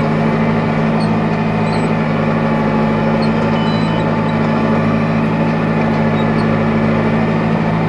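Tractor engine running at a steady working speed while pulling a rotary hay rake, an even drone with no change in pitch.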